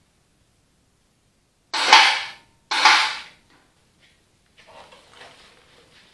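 Two loud metallic clanks about a second apart, each ringing briefly, followed by faint shuffling and handling sounds.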